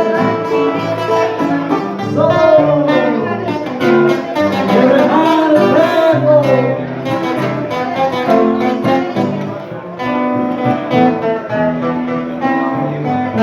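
Instrumental break in a folk song: guitar accompaniment under a lead melody line that slides between notes.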